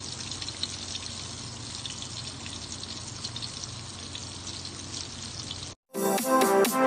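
Breaded tuna fillets deep-frying in oil: a steady sizzle with many small crackling pops. It cuts off suddenly near the end, and upbeat electronic music starts.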